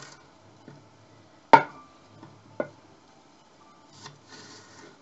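Kitchen knife cutting a spring onion on a wooden cutting board: a few sharp knocks of the blade on the board, the loudest about a second and a half in and another a second later, and a short scraping slice near the end.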